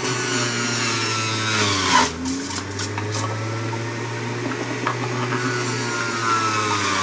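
Electric centrifugal juicer running as fruit is pushed down its feed chute with the plastic pusher. The motor's whine drops in pitch as it bogs down under the load, about two seconds in and again near the end. The juicer is clogged with mango pulp, which she thinks has gunked up the works.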